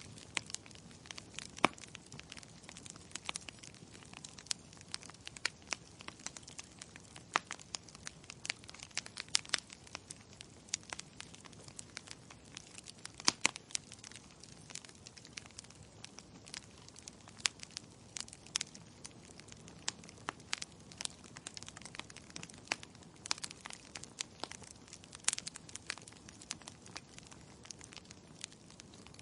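Wood fire burning in a fireplace: a steady low hiss with irregular crackles and sharp pops of burning logs, a few of them much louder than the rest.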